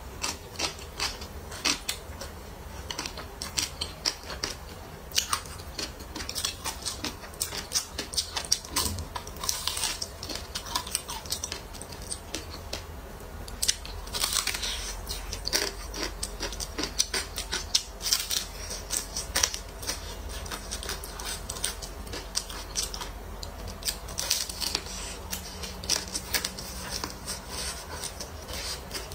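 Close-miked eating: crunching bites into battered fried chicken and chewing, with a dense run of sharp crackling clicks throughout.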